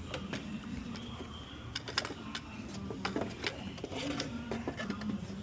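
Scattered light clicks and knocks of the drive belt and tools being handled in a car's engine bay as the belt is pulled off its pulleys, over a steady low hum.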